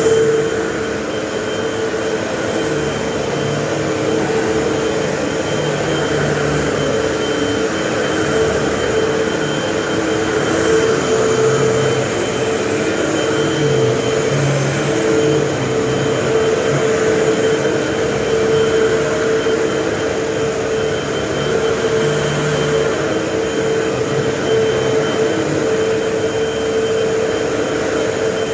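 Vacuum cleaner running steadily, a motor whine over airflow noise, with a low note that comes and goes.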